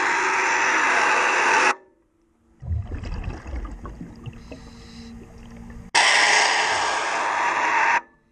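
Diver's scuba regulator heard underwater: a loud burst of exhaled bubbles that cuts off about two seconds in, a quieter stretch with a low rumble and a faint steady hum, then a second exhalation burst from about six to eight seconds in.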